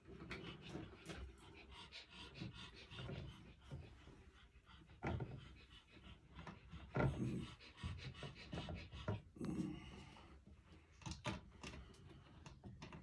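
A man breathing hard from the effort of holding a plastic LED ceiling light up overhead. Irregular rustles and a few light knocks come from handling the fixture and tucking its wires into the box.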